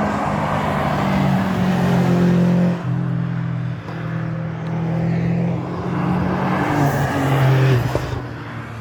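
Historic racing car engine at full throttle, its note stepping through gear changes as it drives past, loudest about seven and a half seconds in, then easing off.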